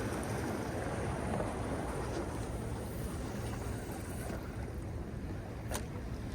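Steady wash of ocean surf and wind, with one short, sharp click near the end.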